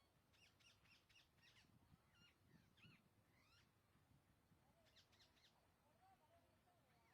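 Rose-ringed (Indian ringneck) parakeets calling in the wild: faint, sharp, screechy call notes in several quick bursts, with a lower wavering call late on.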